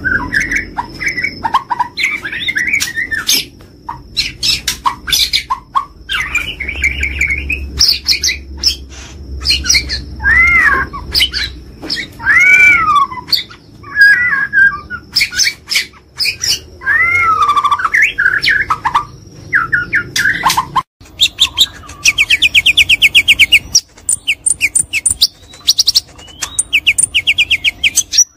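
White-rumped shama (murai batu, Bornean type) in full loud song: a varied run of whistled phrases that rise and fall, broken by sharp clicks. From about two-thirds of the way through come rapid, buzzy rattling trills.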